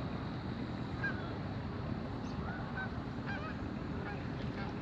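Geese honking at a distance: scattered short calls every second or so, over a steady low background noise.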